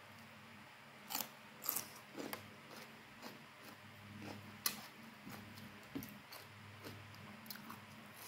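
Crunchy bites and chewing of raw Indramayu mango slices dipped in petis sauce: a few short sharp crunches in the first couple of seconds and one more near the middle, over a faint steady hum.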